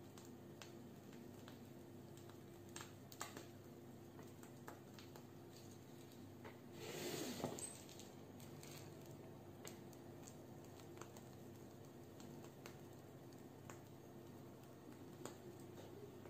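Faint handling noises: scattered small clicks, and a brief rustling scrape about seven seconds in as the cake on its cardboard cake board is turned around on the table.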